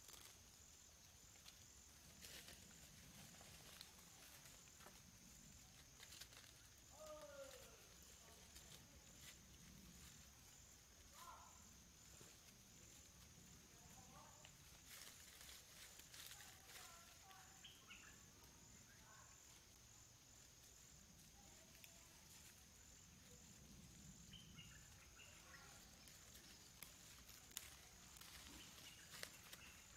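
Faint forest ambience: a steady high insect drone with a fast, even pulse, with a few faint short chirping calls scattered through and some light rustles and clicks.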